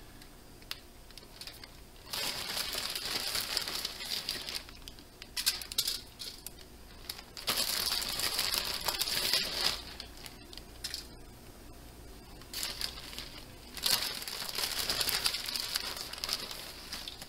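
Plastic bag of shredded cheese crinkling in several bursts of a second or two as handfuls are pulled out of it.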